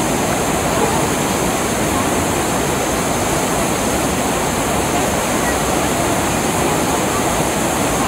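Whitewater rapids of a rocky mountain river: water rushing over boulders, a loud, steady noise that doesn't let up.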